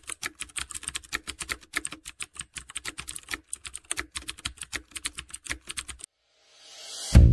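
Keyboard typing sound effect: a rapid, uneven run of key clicks, several a second, that stops about six seconds in. A rising whoosh then swells into loud music that starts right at the end.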